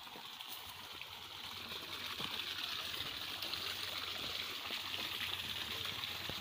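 Water running in a small weedy ditch, a steady rushing trickle that grows louder about two seconds in and cuts off suddenly at the end.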